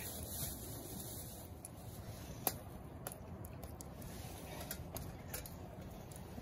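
Small wood fire crackling, with one sharp pop about two and a half seconds in and lighter clicks over the following few seconds.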